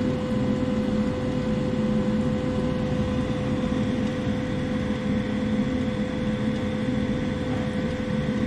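Gas furnace running after a repair: a steady low rumble of the blower and burner with a constant hum tone, unchanging throughout.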